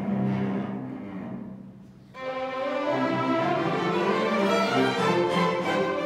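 Student string orchestra playing live: low cello notes hold and fade to a brief lull about two seconds in, then the full ensemble of violins and cellos comes in together and plays on at a higher pitch.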